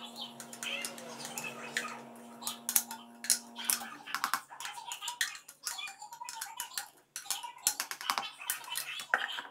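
Plastic spatula scraping and knocking against a clear plastic food-processor bowl, loosening ground coconut: a run of irregular sharp clicks and scrapes. A steady hum in the background cuts off about four seconds in.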